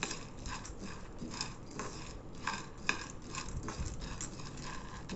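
A metal spoon stirring split roasted gram (pottukadalai) in a dry nonstick pan, lightly roasting it so it turns crisp for grinding. The dal rattles and scrapes against the pan in short strokes, about two a second.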